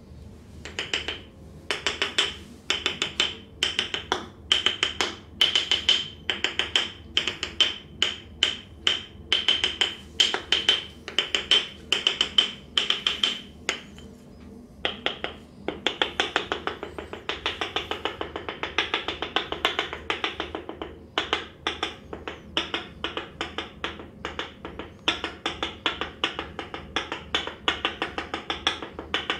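Rapid rhythmic percussive massage: hands chopping and slapping on the body in fast runs of several sharp strikes a second, with a brief pause about halfway through.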